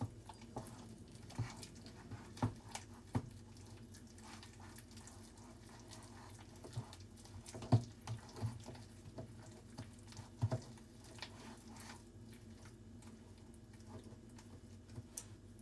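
Hands kneading sticky dango dough in a bowl: faint, irregular soft knocks and taps, most frequent in the first eleven seconds, then sparser.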